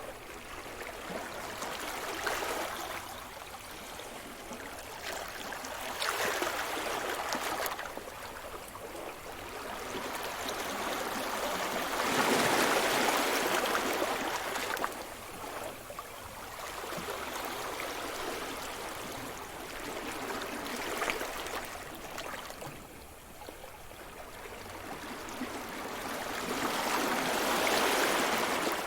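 Sea surf: waves breaking and washing up the shore, swelling and fading in slow surges several seconds apart, the loudest about halfway through.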